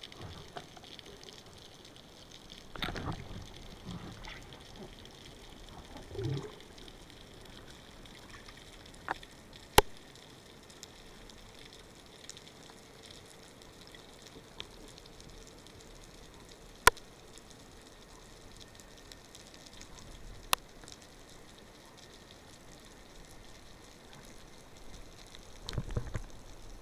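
Underwater ambience heard from a camera on a speargun: a faint steady hiss, with water swishing past three times and a few single sharp clicks.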